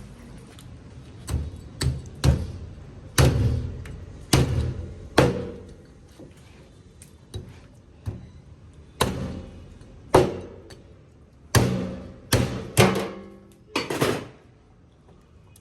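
A heavy knife or cleaver chopping down hard onto a cutting board, about a dozen irregular strikes, each ringing briefly.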